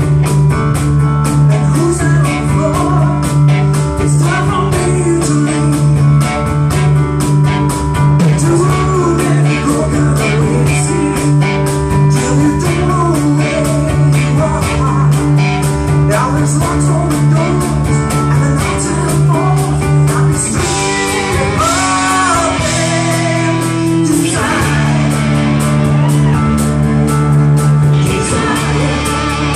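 Live rock band playing: a female lead vocal over electric guitars, keyboard, bass and drums. About two-thirds of the way through the beat drops back for a few seconds under held chords, then the full band comes back in.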